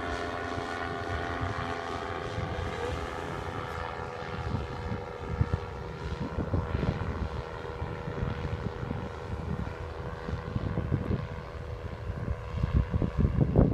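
MTO Sport autogyro flying overhead, its engine and pusher propeller giving a steady drone that fades as it draws away. Wind rumbles on the microphone, more and more from about four seconds in.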